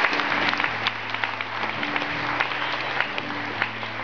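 Audience applause tapering off while an acoustic guitar plays steady chords as a song begins.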